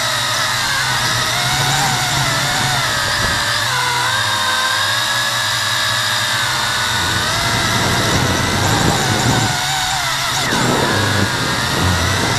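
WLtoys V262 quadcopter's motors and propellers whining in flight, heard through the camera mounted on the craft. Several tones drift up and down together as the throttle changes.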